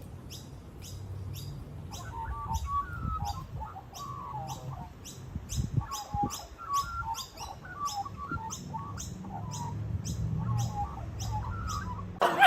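Birds chirping: a short, high, falling chirp repeating evenly about two to three times a second, with bursts of warbling calls over a low steady hum.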